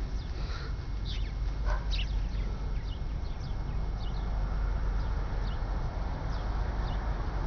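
Short, high chirping animal calls, repeated irregularly, over a steady low rumble.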